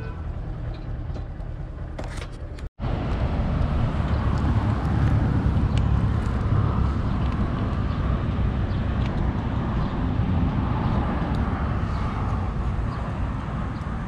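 Steady road traffic noise: a low rumble that swells and eases. It drops out completely for an instant about three seconds in.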